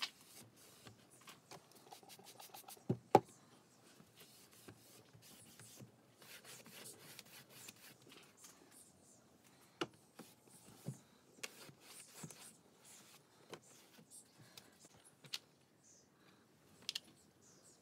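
Hands working at a uPVC window frame and its double-glazed glass unit: rubbing on the glass, with scattered light taps and clicks. Two sharp knocks about three seconds in are the loudest sounds.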